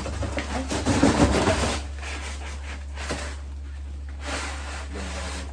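Desk parts and packaging rustling, scraping and knocking as they are lifted out of a cardboard box, busiest in the first two seconds, then a single sharp click about three seconds in. A steady low hum runs underneath.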